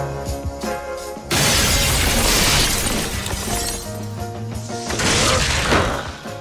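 Tense score music, then about a second in a sudden loud crash of a large plate-glass window shattering that goes on for a couple of seconds, with a second loud noisy burst near the end.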